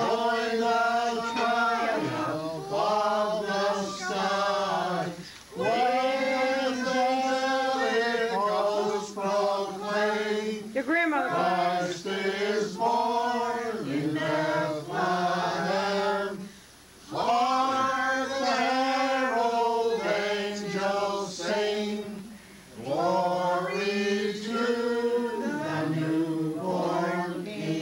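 A group of mixed male and female voices singing a Christmas carol together without instruments, in long sustained phrases broken by short pauses for breath.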